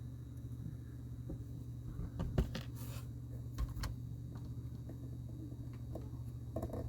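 A few light clicks and taps of small plastic LEGO pieces being handled, clustered about two to four seconds in, over a steady low hum of room or recording noise.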